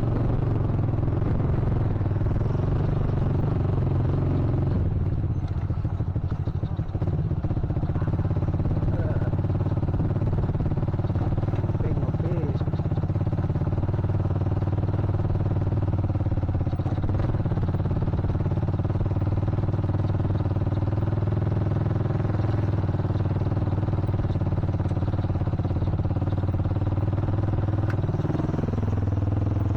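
Yamaha Vixion Advance's single-cylinder engine running steadily under way. It drops briefly in pitch and level about six seconds in, and its pitch climbs near the end as it accelerates.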